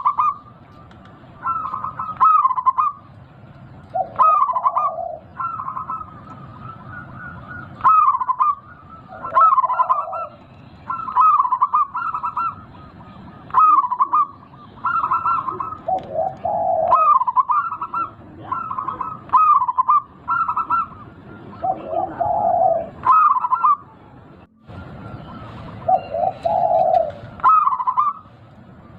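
Zebra dove (perkutut) cooing: short rolling coo phrases repeat about every second or two, some dropping to lower, deeper notes, over a faint steady background hiss.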